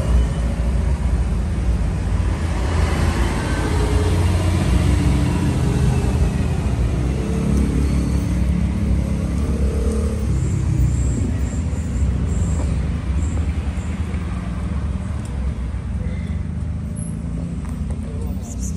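Steady low rumble of road traffic, with a vehicle passing and swelling louder a few seconds in.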